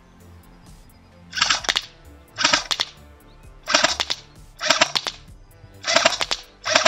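A&K PKM airsoft electric machine gun firing short full-auto bursts: six bursts of about half a second each, roughly one a second, starting about one and a half seconds in.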